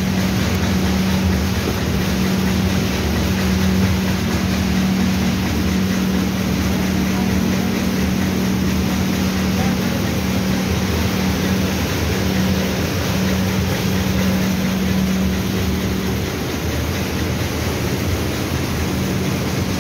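Machinery running steadily: a constant low hum over a broad, even rush of noise, with no change in pace.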